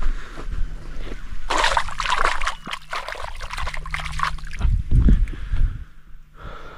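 Feet splashing and sloshing through shallow muddy water, a run of splashes from about a second and a half in, followed by a few heavier low thuds around the five-second mark.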